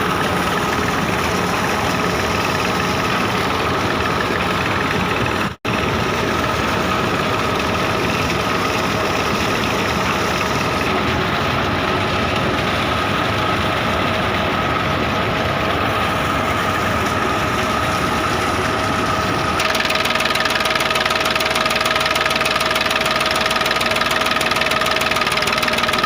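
Engine of a tubewell boring rig running steadily under load, with a constant whine over it. The sound cuts out for an instant about five seconds in, and it turns a little louder and hissier in the last few seconds.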